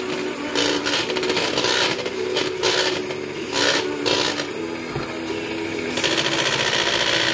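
Electric hand mixer running steadily, its beaters whisking egg in a plastic measuring jug, with repeated clicks and knocks as the beaters hit the sides of the jug.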